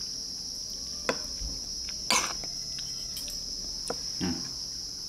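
Steady high-pitched chirring of insects, with a few short clicks of spoons and forks against bowls and plates as two people eat. The loudest click comes about two seconds in.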